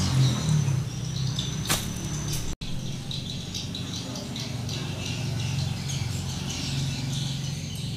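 Small birds chirping over a low steady hum, with one sharp click a little under two seconds in.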